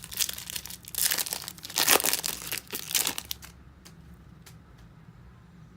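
A 2014 Bowman Chrome foil pack wrapper crinkling and tearing as it is ripped open by hand, loudest about two seconds in. It falls quiet after about three and a half seconds, leaving a few faint clicks.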